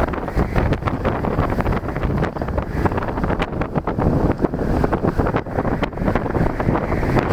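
Storm-force wind buffeting the camera microphone, a loud, continuous rumble that flutters in level, with sea surf faintly beneath it.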